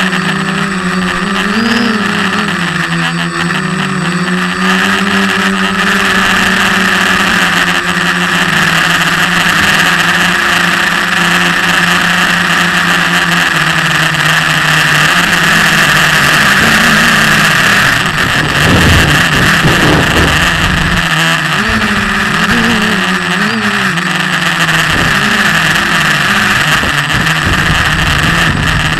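Brushless motors and propellers of an SK450 quadcopter in flight, heard from a camera mounted on the frame: a loud, steady drone with a whine above it, its pitch wavering up and down as the throttle changes, most in the last third.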